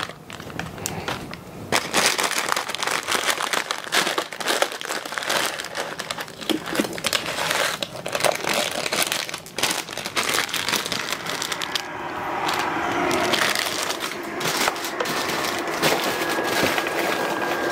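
Dry instant noodles crunched and crushed in their crinkly plastic packets and tipped into an electric kettle, in many sharp crackling crunches. In the last third a steady hiss and rumble from the kettle heating toward the boil builds up underneath.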